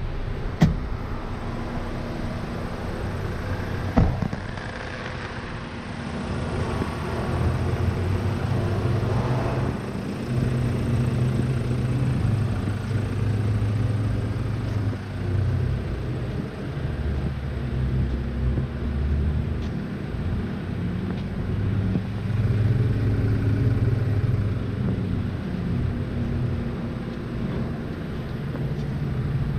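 A vehicle engine idling steadily, a low rumble that swells and fades in strength. Two sharp clicks, one under a second in and another about four seconds in.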